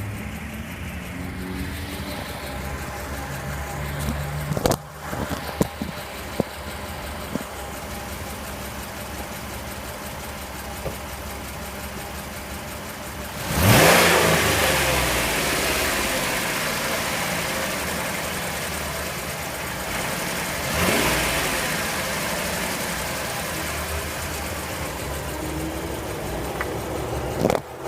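2009 Jeep Wrangler JK's 3.8-litre V6 idling, blipped hard once about halfway and settling back slowly, then revved again more lightly a few seconds later, with a few sharp clicks early on and one near the end. The owner hears a rattle or knock in it at idle and under acceleration and is unsure whether that is normal.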